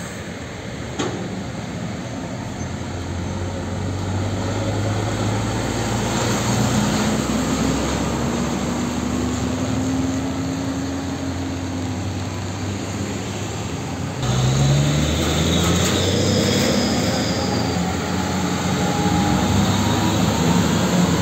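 Heavy diesel trucks driving past: a Hino fuel tanker truck's engine pulls away and passes, its pitch rising then falling. About fourteen seconds in the sound changes suddenly to a container-hauling tractor unit passing with its engine working, over steady tyre and road noise.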